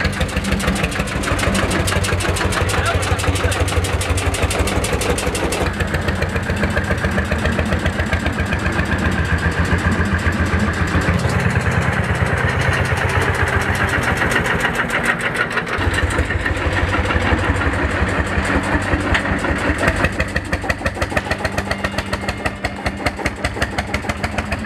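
Pampa tractor's single-cylinder two-stroke hot-bulb engine running, a steady, even beat of exhaust pulses as the tractor drives.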